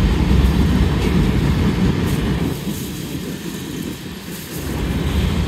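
Freight train cars rolling past: a steady rumble and rattle of steel wheels on the rails, easing off for a couple of seconds past the middle before coming back up.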